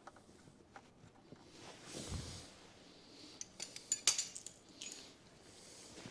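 Small metal clinks and rattles of tiny screws and a hand tool being worked into place, with a busy cluster of clinks about four seconds in.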